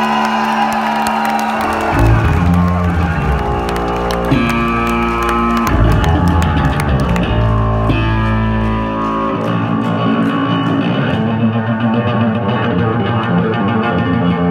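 Yamaha electric bass played solo through a stage amplifier: long held notes, with deep low notes sustained from about two seconds in until past the middle, then a higher, busier line.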